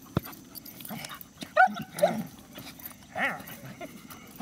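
Young German Shepherd yipping in play: several short, high yips, the loudest about a second and a half in, after a sharp click near the start.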